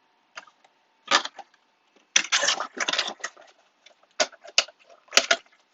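Blaster box of trading card packs being handled: crinkling pack wrappers and rustling cardboard in a string of short, sharp crackles, busiest about two to three seconds in.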